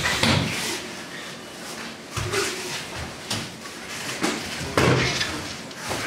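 Several dull thuds of aikido practitioners being thrown and falling onto the mats, the loudest near the start and about five seconds in.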